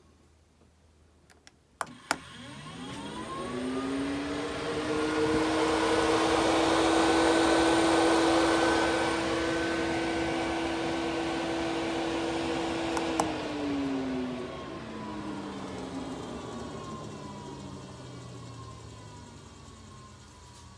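A 12-volt RV bathroom exhaust fan is switched on with a click: its motor spins up with a rising whine and a rush of air, then runs steadily. About 13 seconds in, another click switches it off and the fan slowly winds down with a falling tone.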